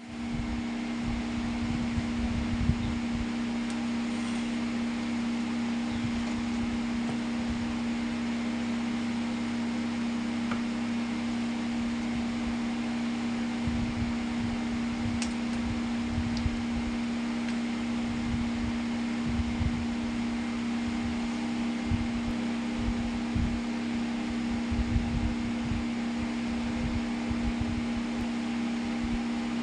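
Homemade table fan with a small 12V DC motor running steadily, with a constant motor hum over the hiss of moving air and occasional low buffeting.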